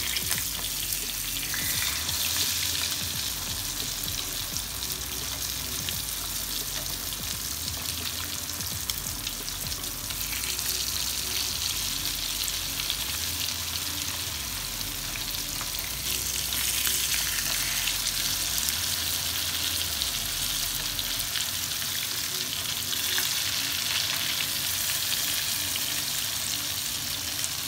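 Masala-coated seer fish steaks sizzling steadily as they shallow-fry in hot oil in a pan, with small scrapes of a spoon as the steaks are turned over.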